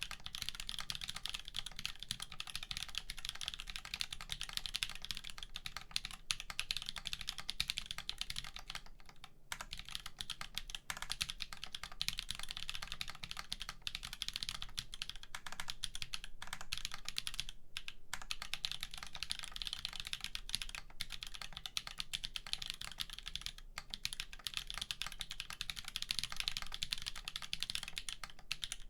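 Steady, fast typing on a mechanical keyboard: an aluminum Wampus prototype with a POM flex plate, Holy BSUN tactile switches, GMK Oblivion keycaps and no dampening. The keystrokes are dense and continuous, broken only by a few brief pauses.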